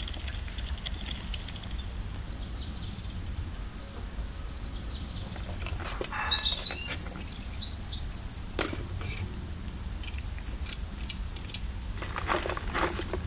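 Small birds singing and chirping, loudest between about six and eight and a half seconds in. Near the end, lumps of charcoal clatter as they are tipped from a plastic bucket into a metal stove.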